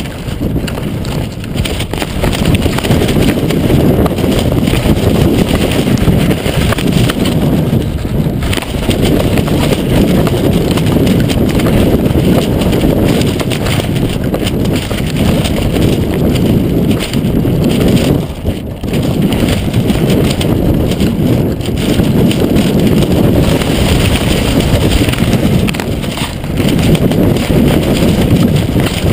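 Strong gusty wind buffeting a GoPro's microphone: a loud, low rumble that swells and dips with the gusts, easing briefly about eighteen seconds in.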